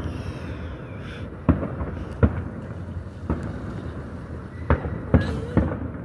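Fireworks going off in the distance: about five sharp bangs at irregular intervals, with a low rumble between them.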